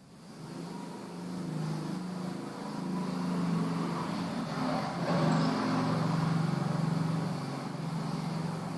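A motor vehicle's engine running and passing by. It builds up over the first few seconds, is loudest around the middle, and eases off toward the end.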